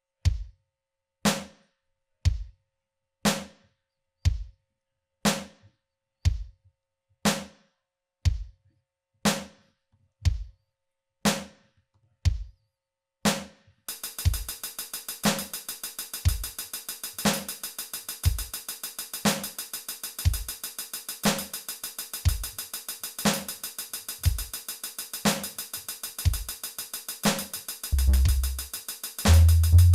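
Drum-machine beat generated by live-coded Sonic Pi: kick and snare alternating at about one hit a second. About halfway in, a fast ticking hi-hat layer and held synth tones join. Near the end a deep bass line comes in.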